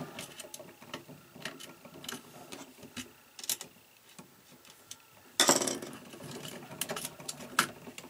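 Electrical wires and a GFCI receptacle being handled at a wall box: scattered light clicks and rustles of stiff cable, plastic and a screwdriver, with a louder rustle about five and a half seconds in.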